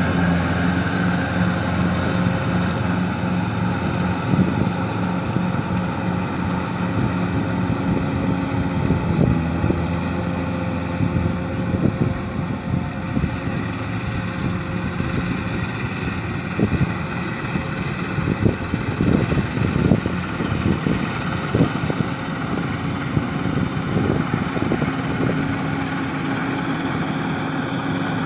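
An engine running steadily at a constant speed, with irregular knocks and clattering through the middle and later part.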